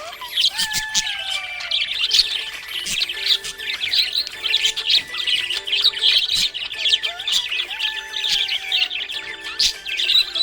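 Several budgerigars chirping and chattering nonstop in quick, overlapping high chirps. Background music with held notes plays underneath.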